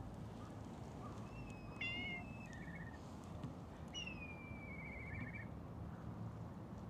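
Cat meowing: a short high call, then a longer one that falls in pitch and ends in a warble.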